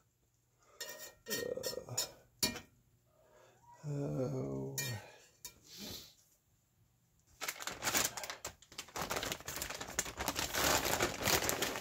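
A metal spatula clicking and scraping against a cast-iron skillet a few times, then, about halfway through, a dense crackling that sets in and keeps going.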